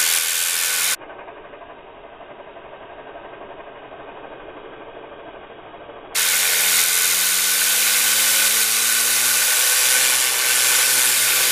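Compressed air hissing loudly from a thin nozzle onto a spinning fidget spinner bearing, with a faint hum that rises in pitch as the spinner speeds up. About a second in the sound drops to a much quieter, muffled stretch, and the loud hiss returns about six seconds in.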